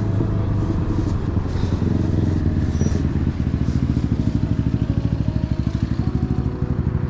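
A motor engine running close by, low and steady, settling into an even rapid throb from about three seconds in.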